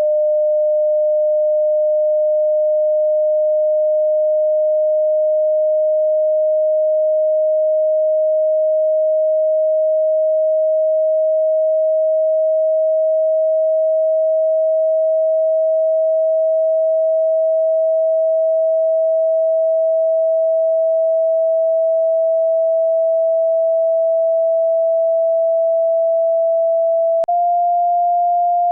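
Hearing-test sine tone: a single pure, steady, mid-pitched tone held without a break and rising very slowly in pitch. Near the end there is a brief click as it steps up slightly.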